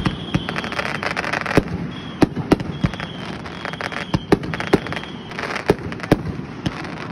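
Aerial fireworks going off: about ten sharp bangs of bursting shells at irregular intervals, with dense crackling between them.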